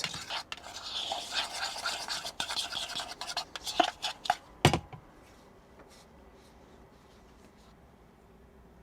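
Dry brown sugar and cinnamon being stirred together in a bowl: a gritty scraping with small clicks of the utensil on the bowl, ending with a sharp knock a little under five seconds in.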